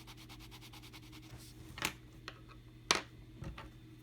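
Coloured pencil shading on sketchbook paper: rapid, even scratchy strokes, with two sharper clicks, the louder about three seconds in.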